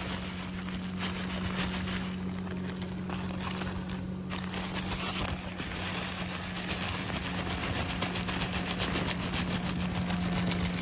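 Motorboat engine running steadily: a low, even hum under a broad rushing noise, growing slightly louder.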